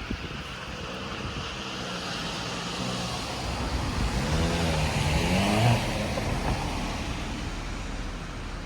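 A car passing by, growing louder to a peak about five and a half seconds in, then fading away, its engine tone bending in pitch as it goes past.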